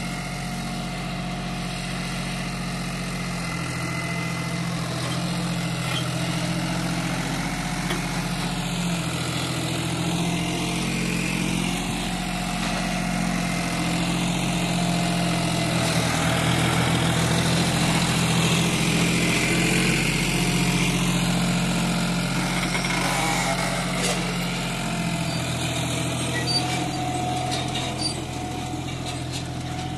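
John Deere 5105 tractor's three-cylinder diesel engine running steadily under load while pulling a potato planter. It grows a little louder about midway through, then eases off.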